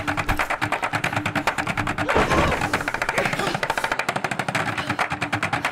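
Fast action music with a rapid, even percussive pulse of about ten beats a second over a held low note, with one louder hit about two seconds in.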